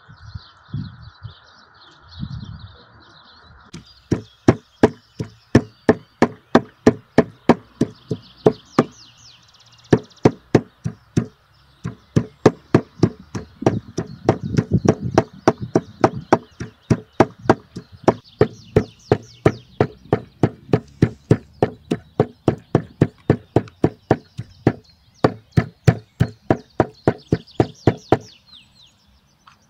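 A meat cleaver chops raw meat on a wooden tree-stump chopping block, sharp knocks at about two to three strokes a second. The chopping starts about four seconds in and runs until near the end. Birds chirp before the chopping begins.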